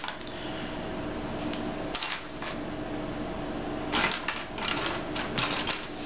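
Wooden spring clothespins clicking and clacking as they are clipped around the edges of freshly glued leather to clamp it, a few clicks at first and a quick cluster of them near the end.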